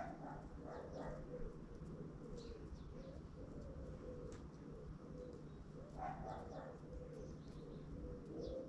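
Common wood pigeon cooing in low, soft phrases, near the start and again from about six seconds in. Small birds chirp faintly in the background.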